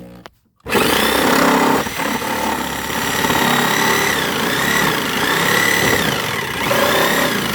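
Corded electric saw starting up about a second in and cutting through the plastic body of a ride-on toy car, its motor pitch repeatedly rising and dipping as the blade loads.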